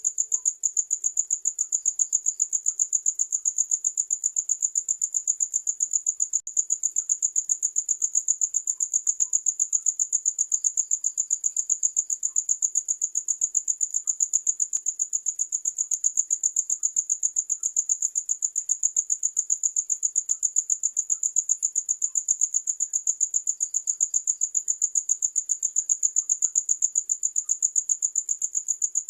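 A cricket chirping without pause: an even, fast train of high-pitched chirps, several a second.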